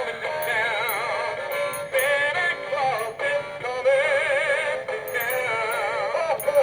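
Animated Santa figure's built-in sound chip playing a sung Christmas tune, the voice sounding synthetic and wavering with vibrato.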